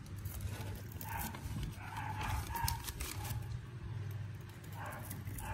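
Faint short calls of a dog, several in the first half, over a low steady hum.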